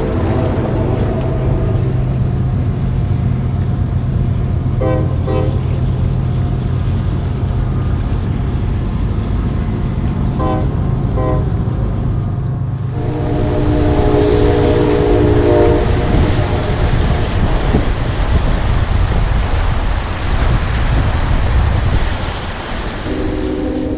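A train passing close by, with a steady low rumble. Its multi-note horn sounds short double toots a few seconds apart, then a long blast about halfway through and another near the end. A louder rushing noise sets in with the long blast.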